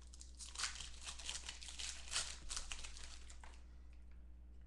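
Clear plastic wrapping of a trading-card pack crinkling and crackling as it is pulled open by hand, in a run of short crackles that dies down after about three and a half seconds. A steady low hum lies underneath.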